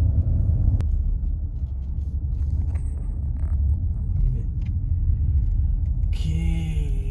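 Car road noise heard from inside the cabin: a steady low rumble of the engine and tyres while driving slowly toward a parking spot.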